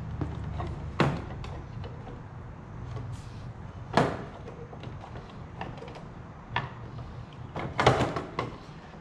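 Sharp clicks and knocks of plastic and fibreglass body parts being handled and fitted by hand, as a C5 Corvette's fuel door and quarter-panel edge are set in place. Single knocks come about a second in and at four seconds, then a quick cluster near the end, over a low steady hum.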